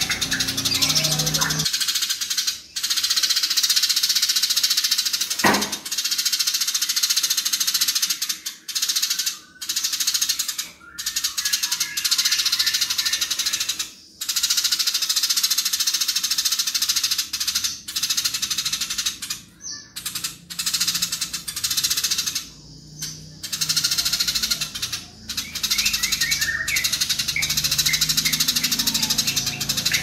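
Eurasian tree sparrows chattering rapidly and harshly in long, dense runs, the fast squabbling chatter of sparrows fighting, broken by a few short pauses.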